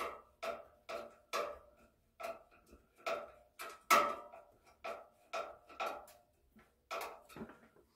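A dog barking repeatedly in a steady run of short barks, about two a second, with the loudest bark about halfway through.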